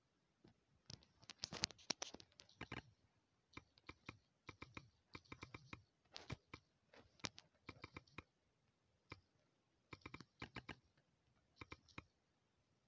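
Faint, quick taps of typing on a smartphone's touchscreen keyboard, picked up by the phone's own microphone, coming in short runs of several taps with pauses between.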